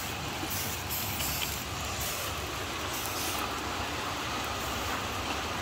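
Steady hiss of rain falling on wet ground.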